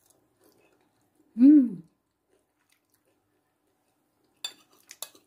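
A woman's short "mmm" of enjoyment while tasting hot food, rising then falling in pitch. Near the end, a few light clicks of a metal spoon against a ceramic plate.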